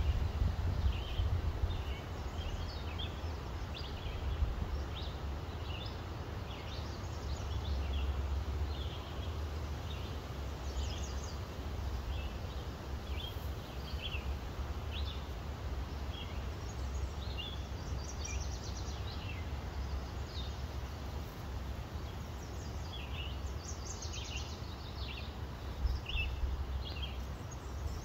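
Birds chirping in many short, scattered calls, over a steady low rumble.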